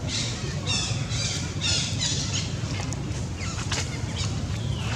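A run of about five short, high-pitched animal calls in quick succession over the first two and a half seconds, then a few fainter sharp chirps, over a steady low rumble.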